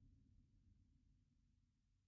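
Near silence: the faint low tail of a sci-fi outer-space ambience drone, fading away.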